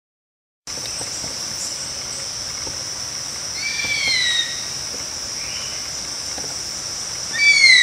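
A steady high insect drone starts just under a second in and holds steady. Two short falling whistled bird calls cut across it, one near the middle and one near the end.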